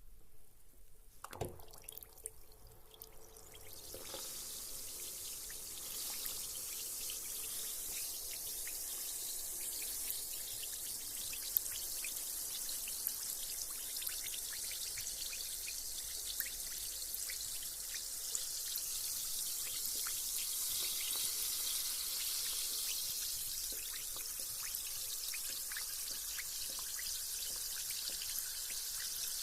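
Carbonated bath bomb fizzing in bath water: after a few soft knocks and a small splash, a steady high fizzing hiss with fine crackling starts about four seconds in and keeps going.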